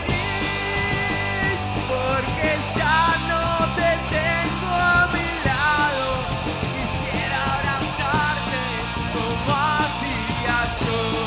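Rock band playing live: electric guitars with a lead singer singing over them.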